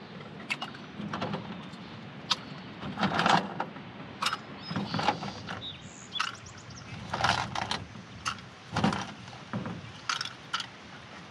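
Small plastic containers being handled: irregular light clicks, taps and rustles as the screw cap of a plastic jar is twisted and a plastic tub is moved, with a few louder knocks spread through.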